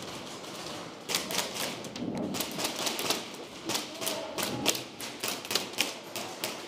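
Airsoft guns firing single shots, sharp clicking snaps at an irregular pace, several close together about a second in and again near the end.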